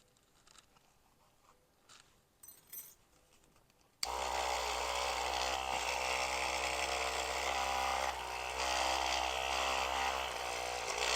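Electric dreadlock machine's small motor switched on about four seconds in, then running steadily. Before it starts, only a few faint handling clicks.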